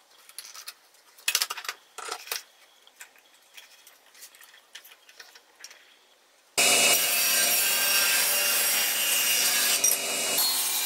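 A few light clicks and knocks of metal and wooden parts being handled on a wooden jig. About two-thirds of the way through, a table saw cuts in loud at full speed, its motor humming steadily under the hiss of the blade cutting wood.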